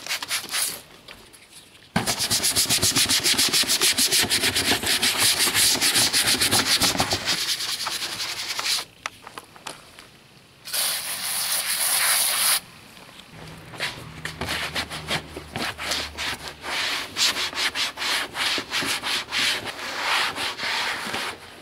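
Cloth wiping briskly over the engine cover of a Northstar V8 in rapid back-and-forth rubbing strokes, cleaning off spilled oil. A short hiss of about two seconds breaks in midway.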